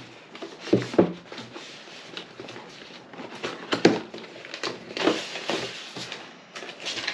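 Product packaging being opened and handled by hand: irregular rustling with several sharp clicks and knocks, the loudest about four seconds in.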